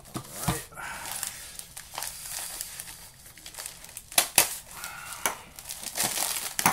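Plastic mailer bag crinkling as it is handled and opened, with a few sharp crackles about four seconds in.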